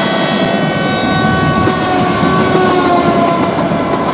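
Train horn held as a train passes, its chord sliding slightly lower in pitch, over the rumbling and clatter of the train's wheels on the rails.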